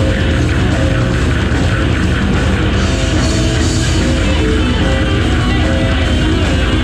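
Live heavy rock band playing loud and steady: electric guitar, bass guitar and drum kit together.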